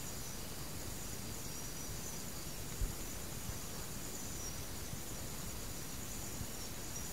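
Steady background hiss with faint, high insect chirring running through it, and one soft low thump about three seconds in.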